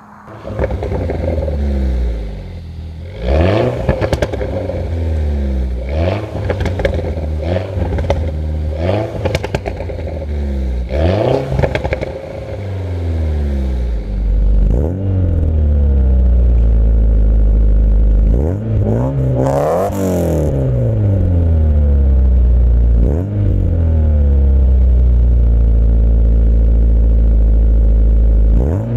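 Sports-exhaust cars revved at a standstill, one clip after another: an R56 Mini John Cooper Works blipped again and again, each rev rising and dropping back, then a 1992 Nissan 240SX S13 running with a loud steady drone and a few revs.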